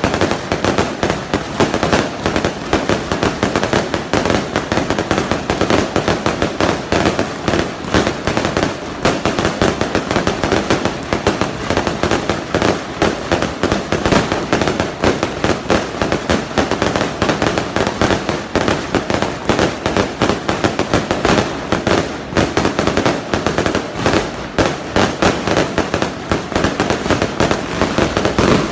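Aerial fireworks bursting in a dense, continuous barrage of rapid bangs and crackling.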